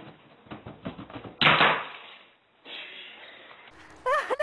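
A tortoise's shell knocking down carpeted stairs: a quick run of knocks, then one loud heavy thud about a second and a half in.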